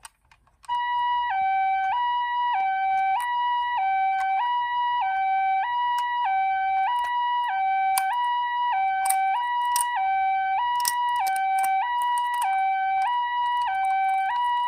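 Toy ambulance's electronic siren sounding the Japanese two-tone "pee-po" pattern, a higher and a lower tone alternating about every two-thirds of a second. It starts under a second in, with scattered small clicks over it.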